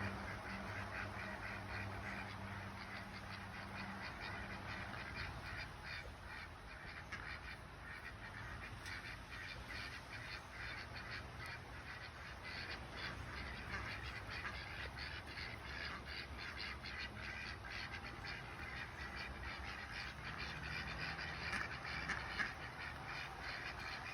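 Ducks quacking and chattering in a rapid, continuous run of short calls, with one brief louder sound near the end.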